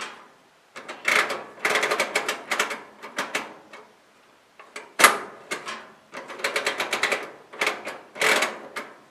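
Rapid metal clicking and rattling of a Kero World KW-11F kerosene heater's wick adjuster mechanism being worked by hand. About five seconds in there is a single sharp snap as the automatic shut-off releases the wick.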